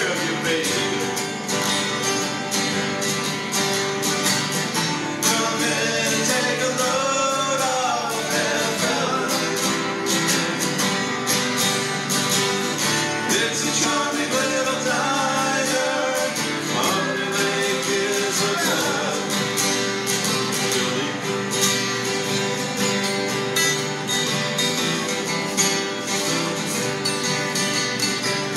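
Three acoustic guitars strummed together in a country song, with male voices singing, two of them at once in parts. The singing stops about two-thirds of the way through, leaving the guitars strumming on their own.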